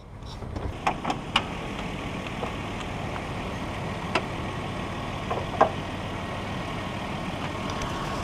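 Nissan Elgrand's 3.5-litre V6 idling steadily, with a few sharp clicks as the bonnet release and latch are worked.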